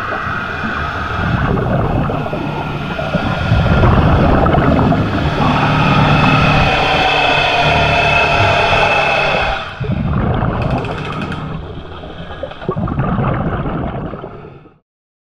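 Motorboat engine and propeller passing close overhead, heard underwater: a loud whine made of several tones sliding up and down in pitch. It is loudest in the middle, dips and comes back, then fades and cuts off just before the end.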